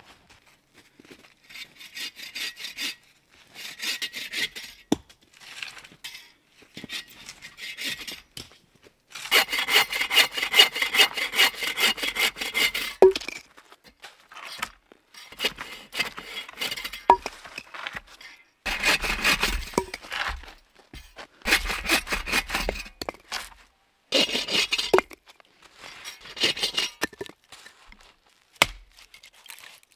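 Hand saw cutting through a log in bursts of quick back-and-forth strokes, with short pauses between bursts and a few sharp knocks of wood.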